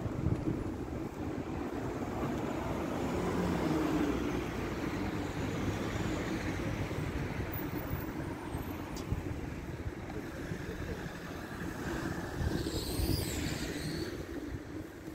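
City street traffic: vehicles driving past with a steady rumble that swells a few seconds in, and a brief high-pitched squeal about two seconds before the end.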